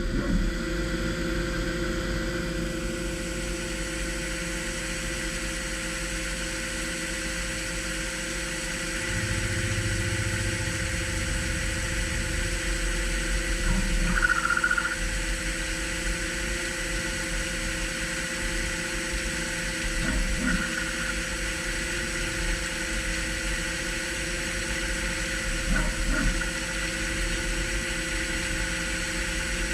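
DMG MORI M1 3-axis CNC milling machine running while milling a steel part: a steady mechanical whine made of several held tones. A lower hum joins for a few seconds, and a brief higher tone sounds about halfway through.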